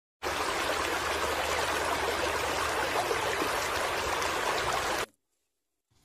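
Running water flowing steadily, a dense even rush that cuts off suddenly about five seconds in.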